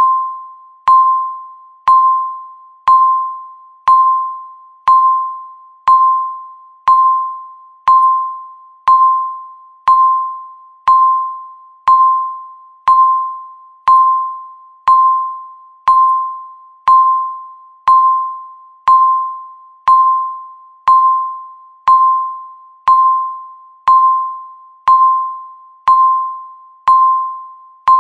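Countdown timer beeping once every second: the same short, single-pitched electronic beep each time, starting sharply and fading away before the next.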